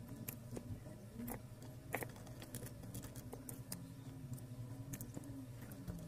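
Faint, scattered light clicks and taps from small wooden popsicle-stick fence pieces and a hot glue gun being handled as the fence is glued and pressed into place.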